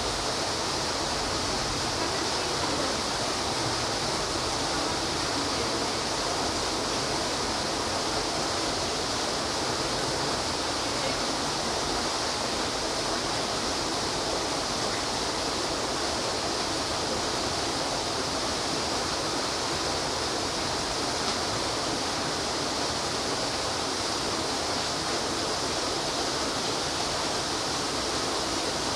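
Steady, even rushing noise, unbroken and unchanging, with no distinct knocks, calls or other events standing out.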